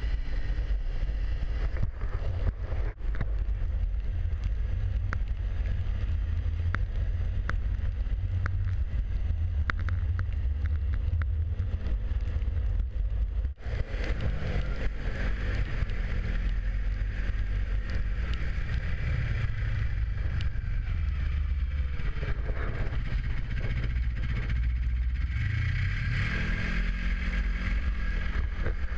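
Yamaha snowmobile running across snow, its engine droning under wind rumble on the microphone. In the second half the engine pitch wavers and then climbs near the end as the throttle opens.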